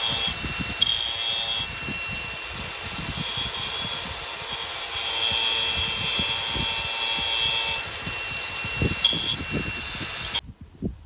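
A small high-speed power tool grinding down the sawmill's ruler pointer, its whine shifting in pitch as it bears on the part, with scattered knocks of handling. It is switched off about ten and a half seconds in.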